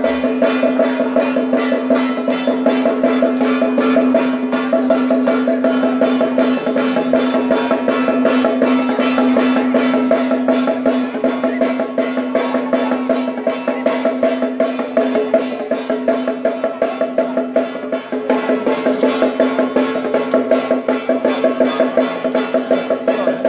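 Procession percussion music: fast, steady drumming and clacking strokes over a continuous held pitched tone.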